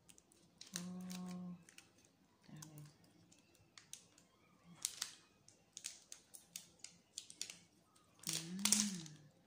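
Thin plastic protective film being peeled off a new smartphone's screen, giving scattered small crackles and clicks along with plastic handling.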